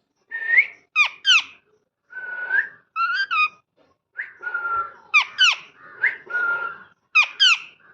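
A pet parrot whistling a string of short calls. Held whistled notes alternate with quick pairs of sharply falling chirps, about one call every second.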